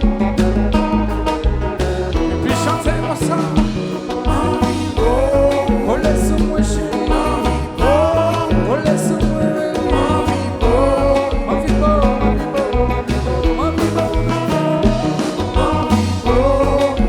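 Live band playing Haitian music with a steady beat and heavy bass, under a lead line with sliding, bending notes that repeats every couple of seconds.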